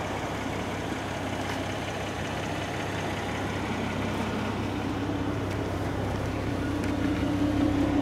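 A car engine idling steadily, with a low hum that grows louder over the second half.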